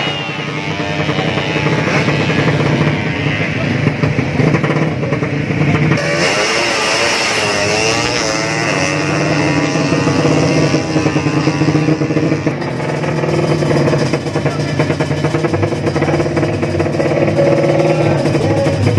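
Drag-race motorcycle engines revving hard and loud, their pitch rising and falling again and again. The sound changes abruptly twice.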